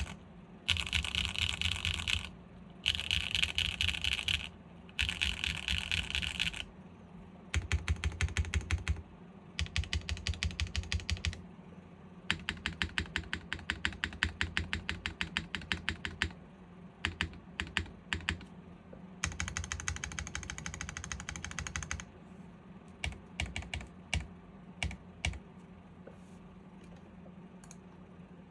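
Custom GAF 910 PC mechanical keyboard with stock SWK Jieum V2 switches, a polypropylene plate and PBTFans PBT keycaps, being typed on. Four dense bursts of fast keystrokes come first, then runs of evenly spaced single key presses, another dense burst past the middle, and scattered single strokes near the end.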